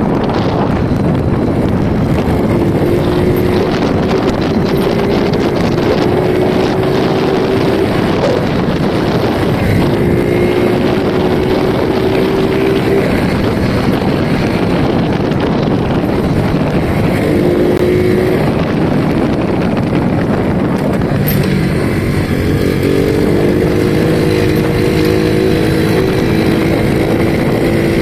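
Small single-cylinder underbone motorcycle running on the road, its engine note climbing slowly in several stretches with breaks between, under heavy wind rush on the microphone.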